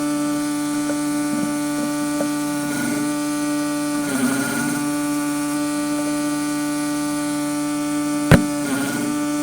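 Portable generator powering a wire-feed welder, running with a loud steady hum. A few short bursts of noise come over it, and there is one sharp click about eight seconds in.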